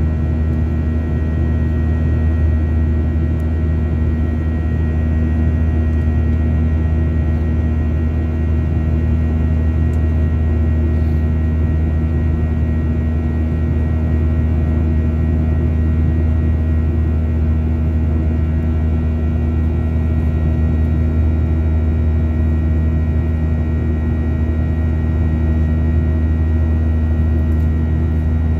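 Steady cabin noise of a Boeing 737 in flight, heard inside the cabin: the jet engines and airflow make a deep, even rumble with a few constant higher tones over it.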